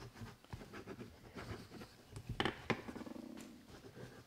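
Pens scratching on paper as stamped envelopes are signed, with scattered soft ticks and two sharper clicks about two and a half seconds in.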